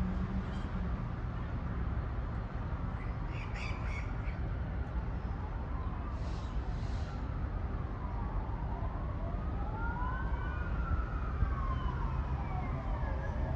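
Emergency vehicle siren wailing, its pitch rising and falling slowly and repeatedly, starting a little before halfway through, over a steady low rumble. A few short high calls are heard in the first half.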